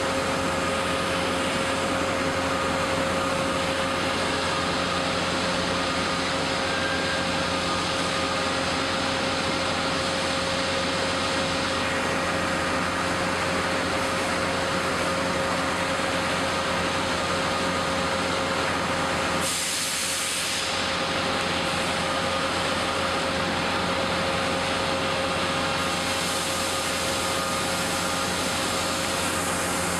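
Steady drone of running factory machinery: a constant rushing hum with several held tones, briefly thinner about two-thirds of the way through.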